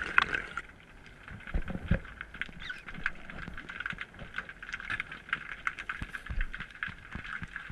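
Underwater ambience through an action camera's housing: a steady hiss with many irregular small clicks and crackles.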